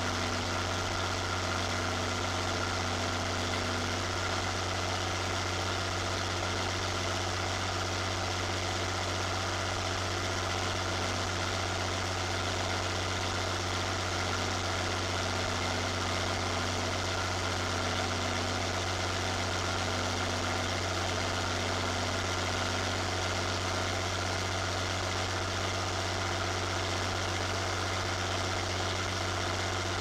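Zetor Crystal 16145 Turbo tractor's turbocharged diesel engine running steadily while driving, close to its upright exhaust stack; the engine note holds even with no revving.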